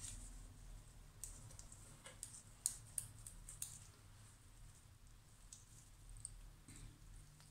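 Faint scattered clicks and light taps, most of them between about one and four seconds in, as gloved hands lay cut pieces of soft clay onto a wooden board and shift them about, over a low steady hum.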